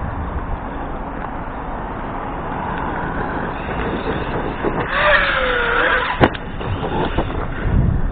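Arrma Kraton RC truck driving over a steady rumble of wind and terrain noise; about five seconds in its brushless motor whines, the pitch dipping and rising with the throttle, followed by a single sharp knock.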